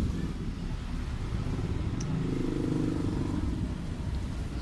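A low, steady rumble like a motor engine, with a droning hum that swells for about a second a little past the middle.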